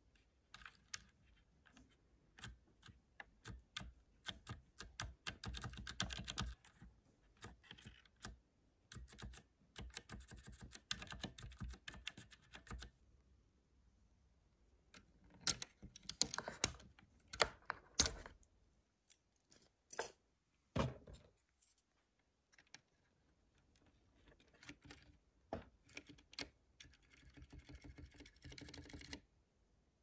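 Keycaps being pulled off and pressed onto the Cherry MX Silent Red switches of a Ducky One 2 keyboard with a keycap puller: irregular runs of light plastic clicks and taps. A few sharper clicks come just after a short pause near the middle, followed by a duller knock.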